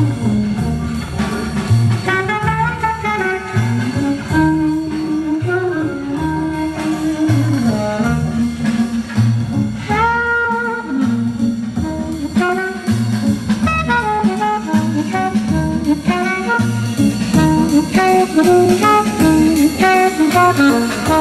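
Horn-led music with a regular bass beat, played loud through the stacked loudspeaker cabinets of a large outdoor sound system.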